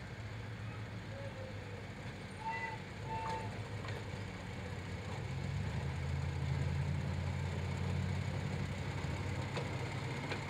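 Small engine of a railway motor car (track speeder) running steadily as it rolls along the rails, growing louder about halfway through as it comes closer.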